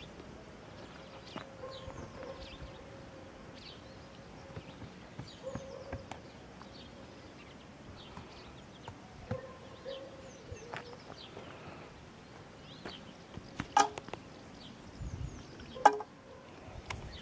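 Small birds chirping outdoors: short, high, falling calls scattered throughout, over a faint steady tone that comes and goes. Two sharp, louder sounds stand out near the end.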